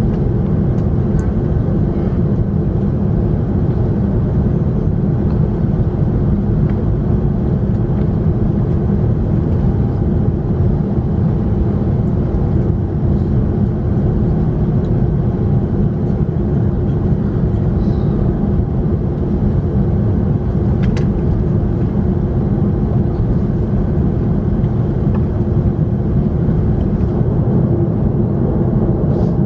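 Steady low drone of an Airbus A340-300's four CFM56 jet engines and airflow, heard from inside the cabin, holding an even pitch throughout.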